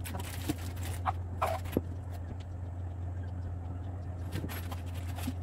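Flat-pack particleboard cabinet panels being handled and fitted together, giving a few short knocks and scrapes, clustered near the start and again near the end, over a steady low hum.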